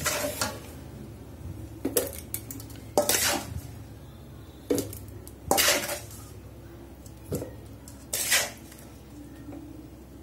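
A steel spoon scraping and clinking against a stainless steel bowl in about seven short strokes, scooping oily green chilli pickle out of the bowl into a plastic container.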